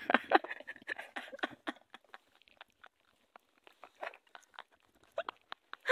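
Stifled, breathy laughter from young men close to the microphone: short quiet gasps and giggles that thin out after about two seconds, leaving only a few faint clicks.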